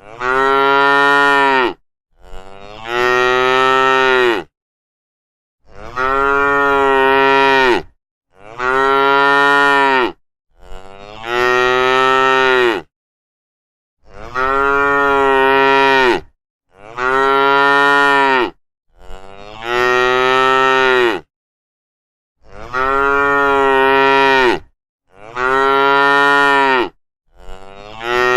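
Cows mooing: a string of about ten long, loud moos, each about two seconds and much alike, with short silent gaps between them.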